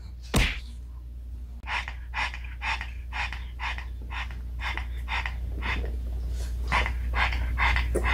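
A pug panting with its tongue out, quick breathy pants about three a second, starting about a second and a half in and growing slightly louder. A single sharp click comes about half a second in.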